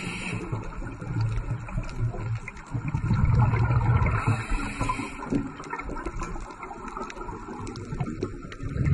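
Muffled underwater rumbling and gurgling of a scuba diver's exhaled bubbles. It comes in surges, swelling loudest about three to four seconds in and again at the very end, with quieter water noise between.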